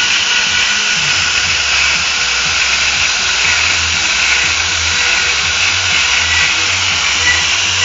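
CNC router spindle with an end mill cutting into wood while carving a relief: a steady high whine and hiss, with a low hum that swells and eases as the cutter moves through the wood.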